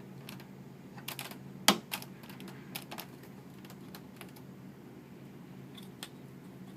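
Scattered light clicks and taps of plastic as a press-on wall clock movement is handled and seated in the clock case, the sharpest click about a second and a half in, over a faint steady low hum.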